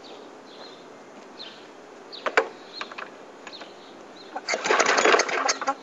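A Murray mower's small engine being cranked over on starting fluid, a loud churning for about a second near the end that dies away without the engine catching, after a couple of sharp clicks.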